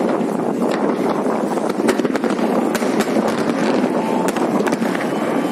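Fireworks display going off continuously: a dense, steady din of bursts with many sharp crackles and pops scattered through it.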